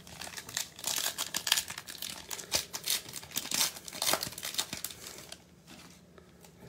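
Wrapper of a 2021 Prizm baseball cello pack being torn open and crinkled by hand, a dense crackling that stops about five seconds in as the cards come out.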